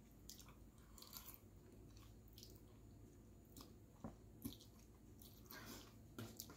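Faint eating sounds: a person chewing a mouthful of spaghetti bolognese, with a few soft clicks from the utensil against the bowl.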